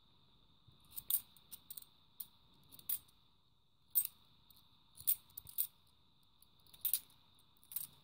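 Fifty-pence coins clinking against one another as they are passed one at a time from hand to hand, about ten short, sharp metallic clicks at irregular intervals.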